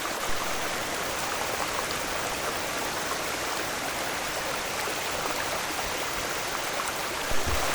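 Water rushing steadily from the waterfall and its stream, with a brief low thump near the end.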